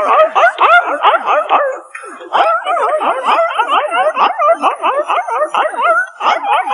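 A corgi's rapid run of yipping, howl-like calls, about three or four a second, each wavering up and down in pitch, with a short break about two seconds in.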